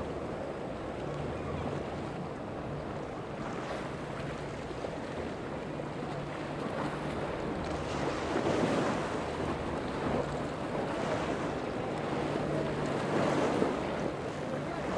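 Rushing water and spray from a center-console boat's hull running through choppy waves, with wind buffeting the microphone and the low hum of its twin 200 hp outboard motors underneath. The splashing swells louder about eight and again about thirteen seconds in.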